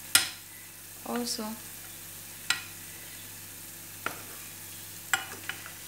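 Sesame-coated dough balls (binangkal) sizzling steadily in hot oil in a small pan. A metal slotted spatula turning them clicks sharply against the pan four or five times, the loudest right at the start.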